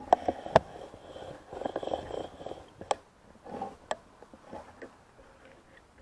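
Several sharp clicks and knocks with rubbing and rustling between them, from rubber-gloved hands handling the motorcycle's fuel tank and the fuel gauge sensor wiring connector.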